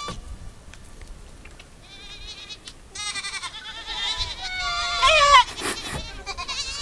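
Thirsty Mongolian domestic goats bleating, several wavering calls overlapping. The bleats start about two seconds in and grow louder, the loudest call coming a little after the middle.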